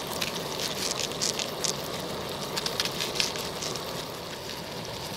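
Potatoes frying in a pan on a camp stove: a steady sizzle with sharp crackles, thickest in the first three seconds or so and thinning out after.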